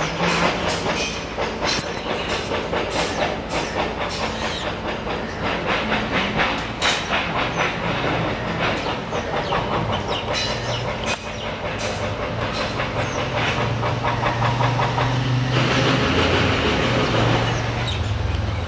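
Loud continuous mechanical rumble with a steady low hum and many irregular sharp clicks; the hum grows stronger in the second half.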